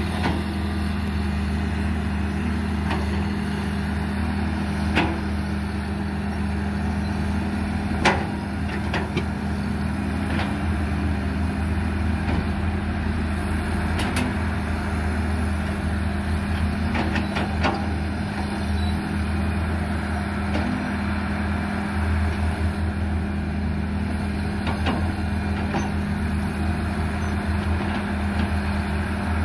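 Caterpillar 320D excavator's diesel engine running steadily while it digs, with a few short sharp clanks and knocks from the bucket and linkage working the soil, the loudest about eight seconds in.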